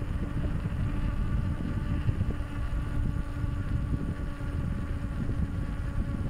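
Wind buffeting the microphone and road rumble while a bicycle rides on asphalt, with a steady buzzing hum over it.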